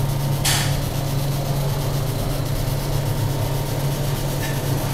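Electric arc welding on steel motorcycle exhaust pipe: a steady electrical hum with a constant hiss from the arc, and a brief louder hiss about half a second in.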